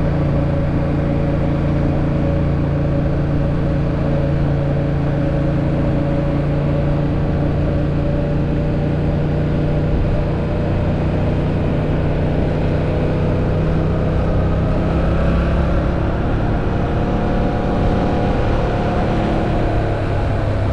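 Yamaha MT-07's 689 cc parallel-twin engine running at a steady pace as the motorcycle is ridden, the engine note holding nearly constant and drifting slightly in pitch in the second half.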